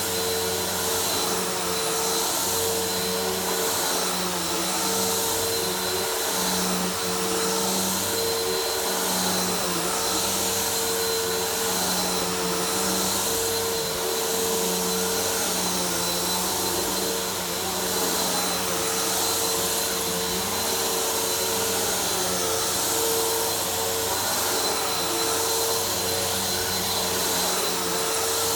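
Vacuum cleaner running steadily while vacuuming a floor: a constant motor hum with a high whine over airflow hiss.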